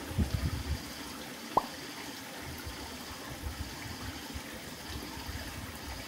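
Subtropical forest ambience with a steady hiss of running water. There are a few soft low thumps near the start and one short rising chirp about a second and a half in.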